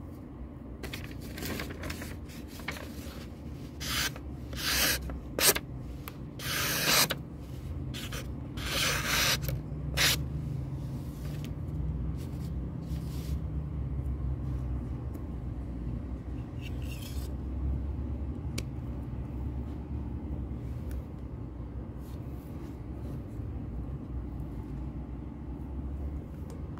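Handling noise: a run of short rubbing and scraping sounds in the first ten seconds, with a fainter one later on, over a low steady hum.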